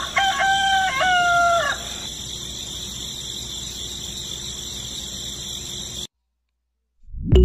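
Rooster crowing once, a stepped call of about two seconds, over a steady high-pitched background of insect-like chirring that cuts off suddenly about six seconds in.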